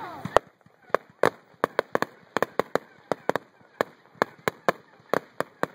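Aerial fireworks going off: a run of sharp bangs and pops at uneven spacing, about three or four a second, the loudest about half a second in.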